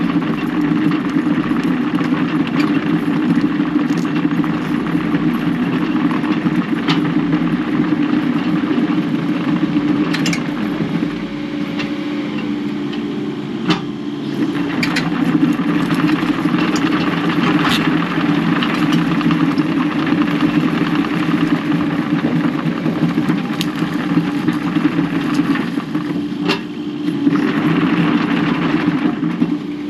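Diesel engine of heavy earthmoving equipment running steadily at working revs, with scattered sharp cracks and knocks as brush and rock are worked. The engine note sags briefly twice.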